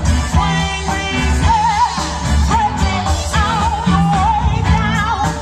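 Live blues band playing with a woman singing the melody, her voice wavering with vibrato over bass and drums.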